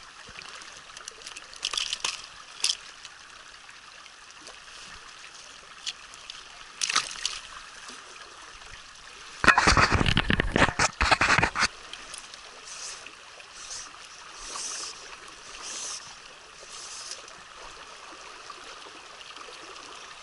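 Mountain trout stream flowing steadily, with a few short splashes and a louder burst of splashing about halfway through, lasting about two seconds.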